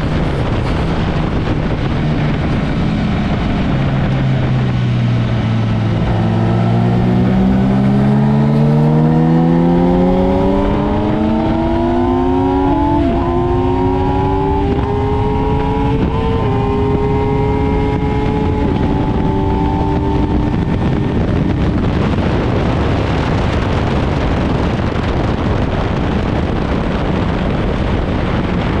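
Sport motorcycle on a racetrack heard from onboard: the engine note drops low, then climbs hard under acceleration with three quick upshifts and holds high before fading under heavy wind rush at speed.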